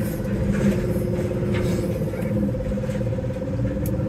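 Farm loader's engine running steadily under load, heard from inside the cab, with a constant drone and low rumble.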